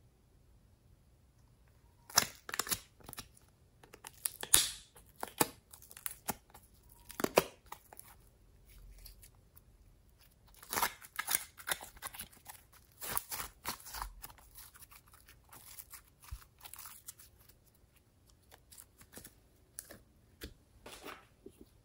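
Glossy slime handled by hand as a small plastic slime container is opened and emptied: irregular sharp clicks, pops and crackles. They come in two dense runs and grow softer near the end.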